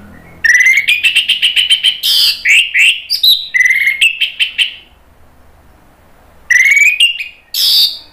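Orange-headed thrush singing close by: a fast run of loud, clear whistled notes with rising sweeps for about four seconds, then after a pause two short bursts of song near the end.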